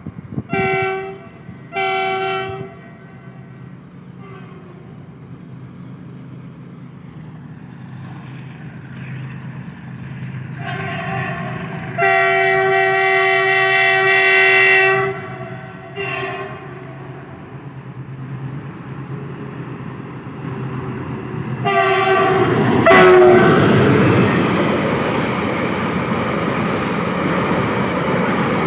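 Air horn of an Indian Railways WDG6G diesel locomotive. Two short blasts come first, then after a pause a long blast and a short one; about three quarters of the way in another blast drops in pitch as the locomotive passes. The rumble and clatter of the train rolling by grows louder toward the end.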